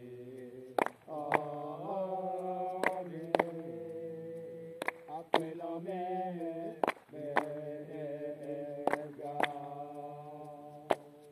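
Voices chanting a slow melody of long held notes, as at a Rastafari Sabbath service. Sharp claps or strikes keep time over it, in pairs about half a second apart, roughly every two seconds.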